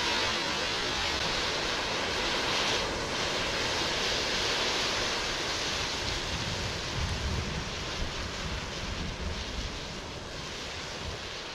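A large pile of burning matches giving off a steady rushing hiss as the fire burns, growing quieter as the flames die down. Gusts of wind buffet the microphone with low rumbles from about halfway through.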